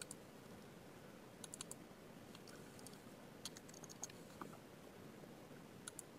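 Faint, sparse typing on a computer keyboard: a few short key clicks in small groups, about a second and a half in, around three to four and a half seconds in, and again near the end, over a low room hiss.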